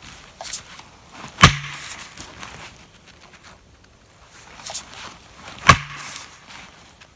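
Two hard blows about four seconds apart, each with a brief low ring: a felling wedge being pounded into the back cut of a leaning tree to tip it over.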